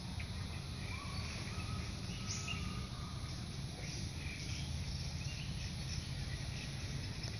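Outdoor rural ambience: a steady low rumble of wind on the microphone, with a few faint bird chirps.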